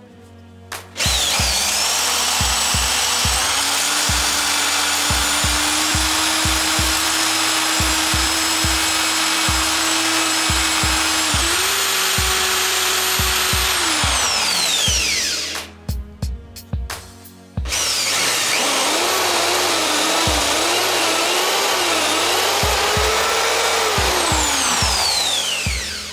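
Corded electric drill spinning a wooden toy wheel mounted on a bolt in its chuck. It spins up with a rising whine, runs steadily, steps up in speed, and winds down with a falling whine. After a short pause it runs again with its speed wavering and winds down near the end. Background music with a steady beat underneath.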